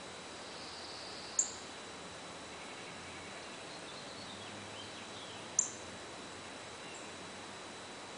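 Northern cardinal giving two sharp, high chip calls about four seconds apart, over a steady background hiss with fainter birdsong in between.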